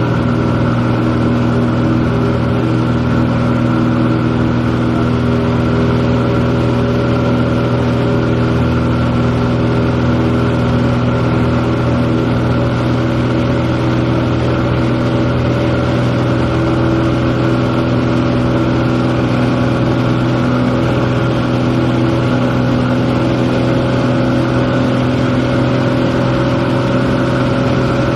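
Light airplane's engine and propeller droning steadily in flight, heard inside the cabin.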